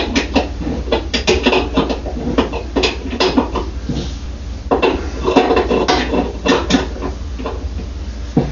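Irregular metallic clicks and clinks of a bolt being turned by hand with a wrench, drawing the washer's drum shaft into its new bearings.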